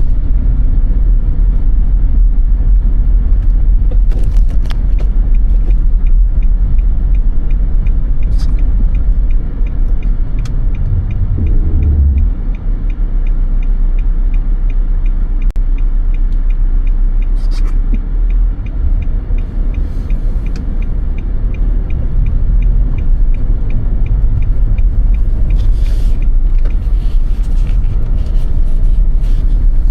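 Steady low rumble of a car driving on snowy roads, with a few brief clicks scattered through it.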